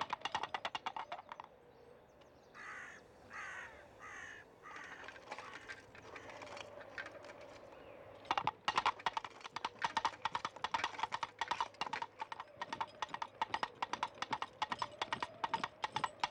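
Fast clip-clop clatter of galloping hoofbeats. It breaks off after about a second and a half, and four short, harsh caw-like calls follow. About eight seconds in, the quick clip-clop starts again and keeps going.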